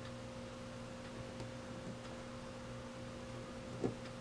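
Steady electrical hum with a few faint clicks of small metal parts as a vintage Beaver vending coin mechanism is reassembled by hand, and a short dull knock near the end.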